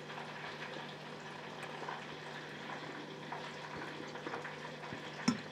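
Faint, steady bubbling hiss of alligator pieces deep-frying in oil, under a steady low hum, with a light tap of a fork on a plate near the end.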